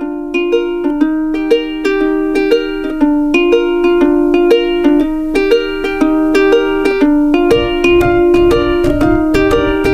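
Intro music: a light plucked-string tune with evenly spaced notes, about two a second, and a low accompaniment coming in about seven and a half seconds in.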